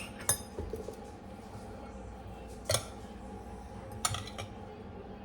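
A kitchen utensil clinking against dishware while mayonnaise is scooped into the chicken salad: a few sharp clinks, about a quarter of a second in, near the middle and again about four seconds in.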